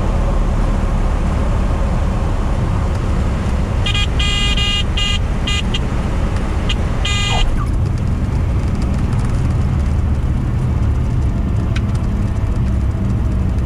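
Cessna 182's engine and propeller drone heard inside the cabin at landing. The stall warning horn sounds in several short bursts between about four and seven seconds in as the plane is flared to a stall just above the runway.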